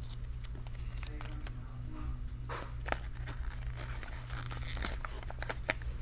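Foil and plastic toy packaging crinkling and tearing in the hands as it is opened, in irregular crackles that get busier about halfway through. A steady low hum sits underneath.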